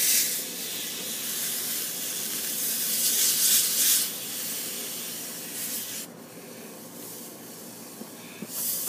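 Steam hissing off a wet rag wrapped around a freshly silver-soldered copper line joint, as the hot joint is quenched, with the rag rubbing against the pipe. The hiss swells in the first few seconds, then dies down about two-thirds of the way through.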